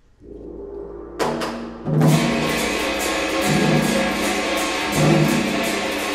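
Teochew gong-and-drum ensemble with a Chinese orchestra starting a piece. A quiet low swell is followed about a second in by two sharp ringing percussion crashes. From about two seconds the full ensemble plays loudly, with quick, regular gong and drum strikes over held tones.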